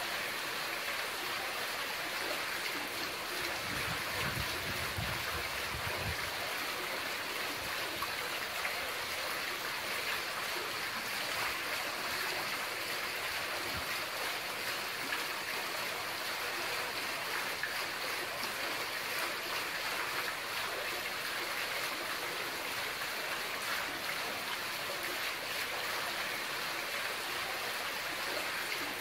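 Water running from the taps of a şadırvan, a mosque's ablution fountain, splashing steadily into its basin.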